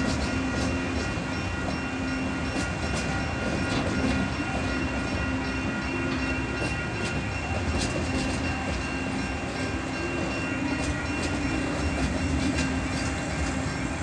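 Freight train wagons rolling across a level crossing with a steady rumble and clatter, while the crossing's Safetran electronic bell rings on with repeated strikes.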